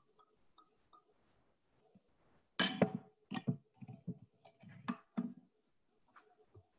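A cluster of knocks and clattering clicks lasting about three seconds, starting about two and a half seconds in, the loudest at the start, heard through an open microphone on a video call.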